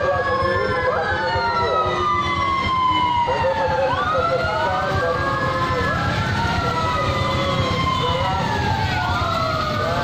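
Several sirens wailing at once, their slowly rising and falling tones overlapping, over the low rumble of passing car engines.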